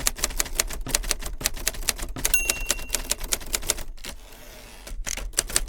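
1963 Hermes 3000 manual typewriter being typed on fast, with crisp keystrokes several to the second. Its margin bell rings once about two seconds in. Near four seconds in the typing gives way to a second of softer sliding noise from the carriage return, and then the keystrokes resume.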